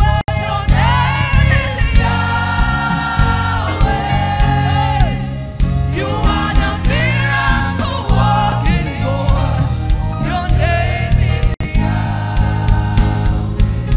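Live gospel praise music: a congregation singing a worship song with band accompaniment over a steady bass. The sound cuts out for an instant twice.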